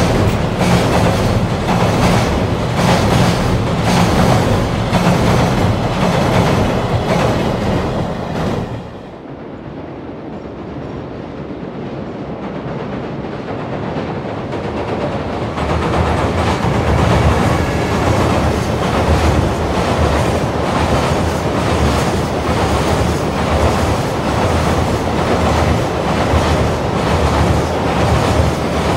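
Container freight train wagons running over a steel girder bridge, with a dense rumble and a rapid clatter of wheels. About nine seconds in, the sound cuts to a quieter, distant approaching freight train. It grows louder until its wagons are clattering past close by.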